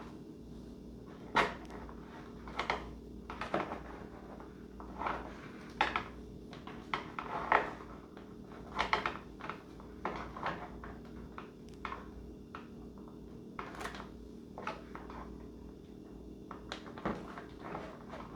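Irregular light clicks and knocks from model-plane parts and tools being handled during assembly, over a steady low hum.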